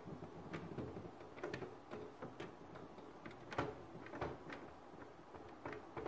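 Faint, scattered clicks and taps of fingers gripping and prying at the plastic front cover of a Beko wall-mounted split air conditioner, the loudest about three and a half seconds in.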